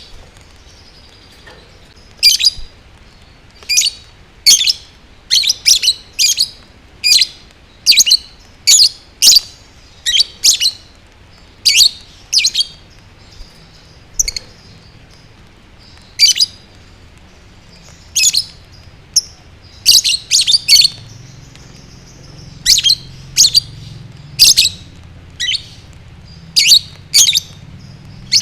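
Lovebird chirping: short, sharp, high-pitched chirps one after another, roughly one or two a second at uneven spacing, some in quick pairs.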